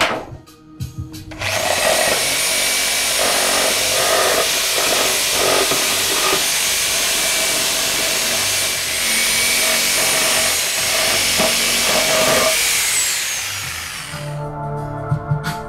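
Reciprocating saw running and cutting into a wooden pallet: a loud, steady rasping buzz that starts about a second and a half in and dies away near the end.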